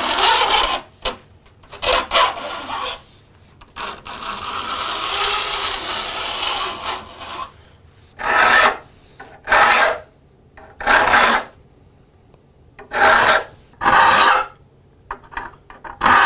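Steel file rasping on the teeth of a hand saw being sharpened: a long, softer stroke along the tooth line in the first half, then short separate push strokes, roughly one a second.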